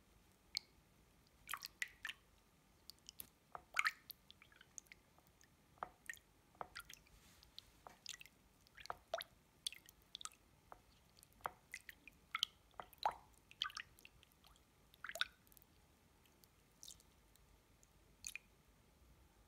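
Feet shifting in a basin of foot-bath water: irregular small splashes and drips, a few at a time with short quiet gaps.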